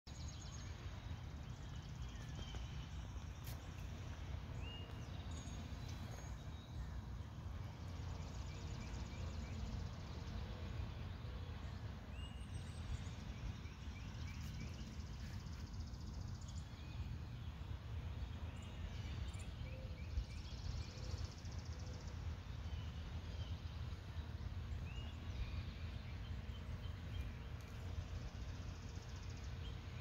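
Outdoor ambience: a steady low rumble, with small birds chirping now and then in short runs of high notes.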